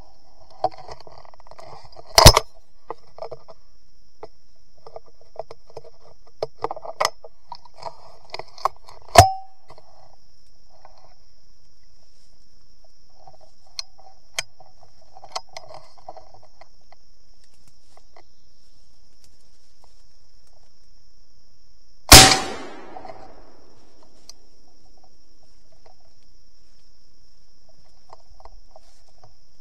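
Three gunshots from a squirrel hunter's gun, about two, nine and twenty-two seconds in, the last one trailing off in a long echo through the woods. Light clicks and rustling of the gun being handled come between the shots.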